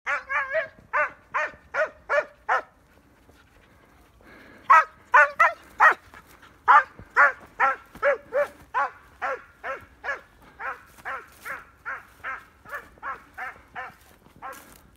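A dog barking over and over: a quick run of barks, a pause of about two seconds, then a steady string of barks at about two to three a second.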